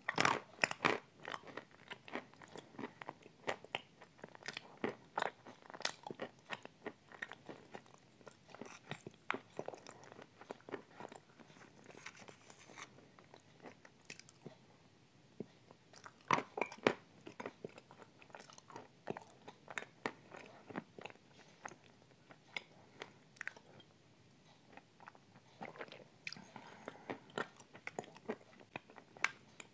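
Close-miked chewing and crunching of a spoonful of chocolate cream dessert topped with small white crunchy pieces, with many sharp, irregular mouth clicks and quieter pauses between bites.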